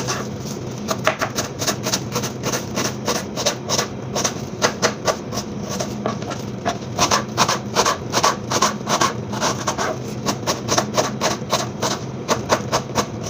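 Kitchen knife dicing a red onion on a plastic cutting board: quick, uneven knocks of the blade on the board, a few a second.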